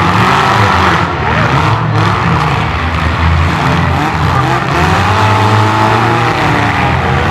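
Car engines running loud and revving, their pitch rising and falling, typical of demolition derby cars in action.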